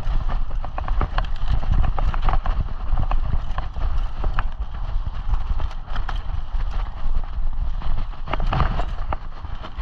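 Mountain bike ridden fast over a rough dirt trail: irregular rattling and knocking from the bike as it goes over bumps, tyres rolling on dirt, and a heavy wind rumble on the microphone.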